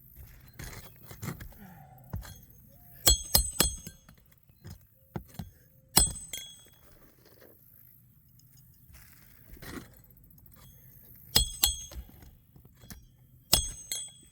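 Roofer's hatchet hammering roofing nails into an asphalt shingle: sharp, ringing metal-on-metal strikes in quick groups of two or three with pauses between.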